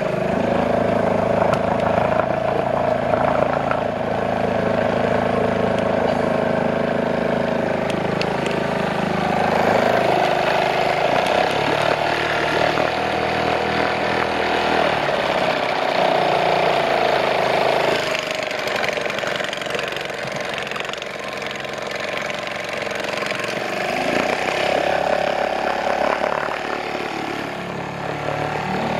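A small boat motor runs steadily as it pushes the canoe upstream. Its pitch and loudness change several times as the throttle is eased and opened.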